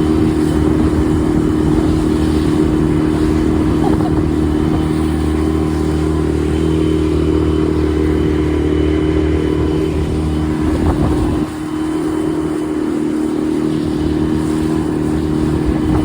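Dinghy outboard motor running steadily at close range. About eleven and a half seconds in, its lowest tone drops away and it runs a little quieter.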